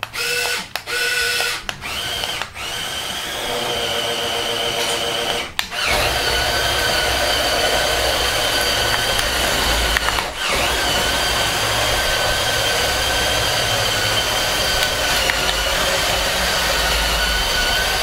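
Electric L-motors and plastic gearing of a CADA C61056 brick-built remote-control bulldozer whining steadily as it drives, with its plastic tracks rumbling on a wooden floor. The whine breaks off briefly several times in the first six seconds and once about ten seconds in, where the machine stops and moves off again.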